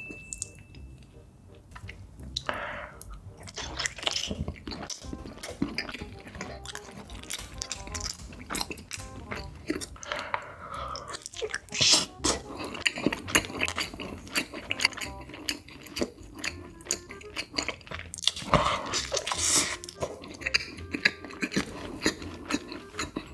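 Close-miked mukbang eating sounds: biting off and chewing mouthfuls of solid block cheese, with wet mouth clicks and smacking throughout.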